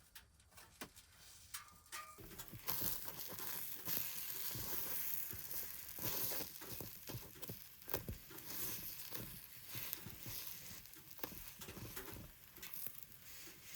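Batter frying and sizzling in a hot oiled pan. The hiss builds about two seconds in, with scattered light clicks and scrapes of a utensil.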